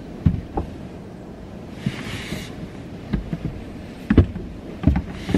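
Scattered soft thumps and knocks inside a parked car as a child climbs out of the back seat, with a brief rustle about two seconds in.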